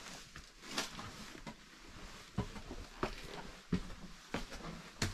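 Footsteps in a room: a series of light knocks and clicks, roughly one every two-thirds of a second in the second half.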